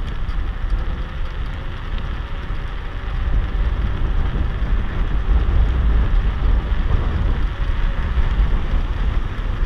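Wind buffeting the microphone of a camera on a mountain bike riding down an asphalt road, over a noisy rush of tyre and air noise. It grows louder about three seconds in.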